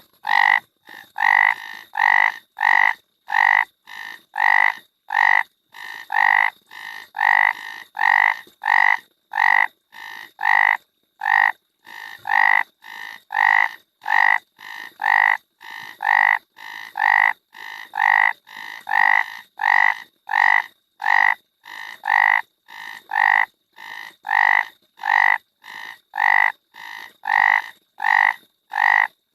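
A frog croaking over and over in short, evenly spaced calls, about two a second.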